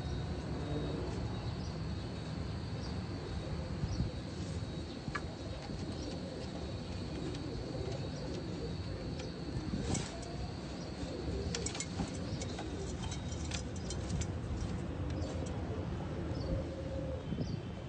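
Domestic pigeons cooing, low wavering calls, over a steady low rumble. A faint high steady whine runs through the first half, and a cluster of sharp clicks and rustles comes about ten to thirteen seconds in.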